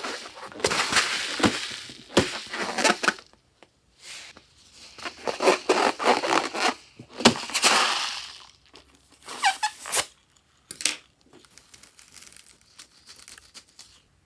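Slime being squished and worked by hand, with wet crackling and sharp popping clicks, louder in the first half and softer from about nine seconds in.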